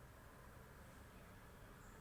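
Near silence: faint room tone with a low hum and hiss.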